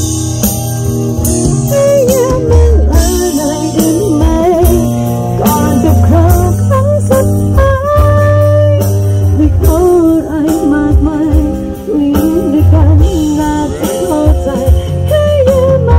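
Music: a singing voice over guitar and a strong, steady bass.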